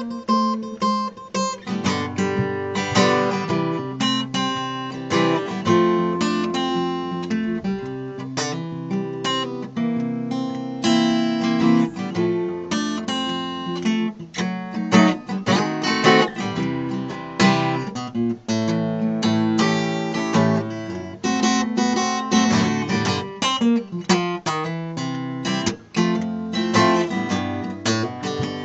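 Steel-string acoustic guitar played solo: a blues instrumental break of picked bass notes and treble lines mixed with strummed chords, with no singing.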